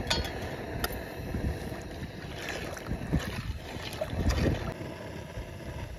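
A metal ladle stirring thick dal in an aluminium pot, the liquid sloshing, with a couple of sharp clicks of the ladle against the pot near the start.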